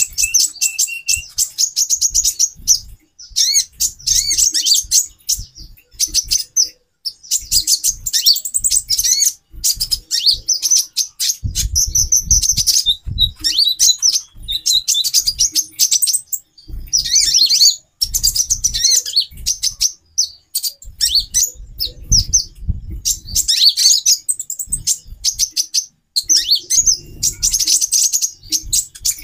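Several female olive-backed sunbirds chirping together in rapid, high-pitched bursts with short gaps between. This is the busy calling that keepers play to rouse male sunbirds into song. Low thumps come and go underneath.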